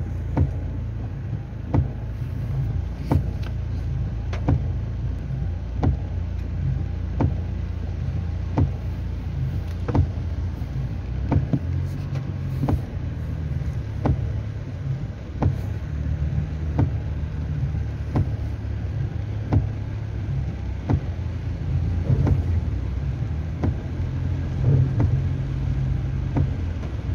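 Inside a car cabin: the engine runs with a steady low rumble while the windshield wipers knock at the end of each sweep, about once every second and a half.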